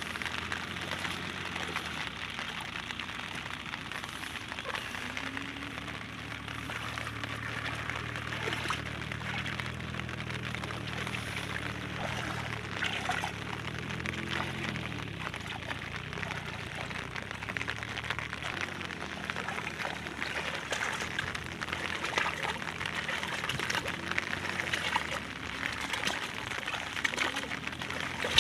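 Steady rain with water pouring and trickling, a constant speckled hiss.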